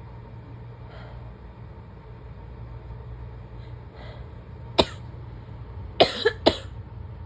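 A person's barking asthma cough: one sharp cough about five seconds in, then a quick run of three coughs a second later, over a steady low hum.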